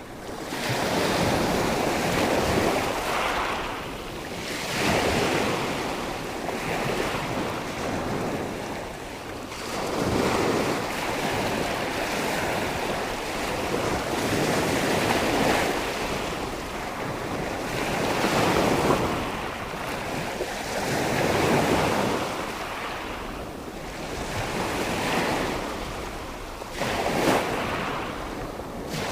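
Sea waves breaking and washing on the shore, in surges that swell and ebb every few seconds, with wind buffeting the microphone.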